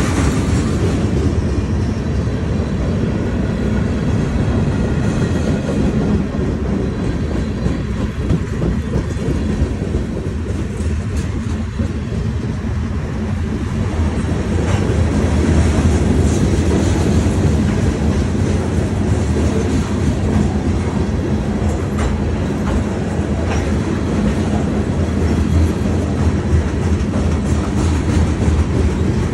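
A CSX manifest freight train's cars rolling steadily past, a continuous heavy rumble with a few faint wheel clicks.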